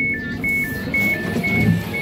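Class 331 passenger train's door warning beeping as the door-open button is pressed: two alternating tones, one higher and one lower, about twice a second, over the low rumble of the train.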